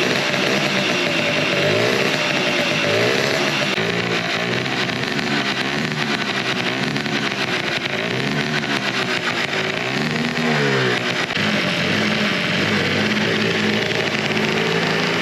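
Yamaha Jog 27V scooter's small two-stroke engine blipped up and down repeatedly through an RB Works expansion chamber, then held steadier revs near the end.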